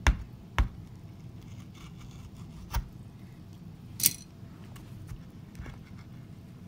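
Toy gold bars and a hand knocking against a glass baking dish as a bar is picked up: a few short, sharp knocks and clicks, the brightest about four seconds in.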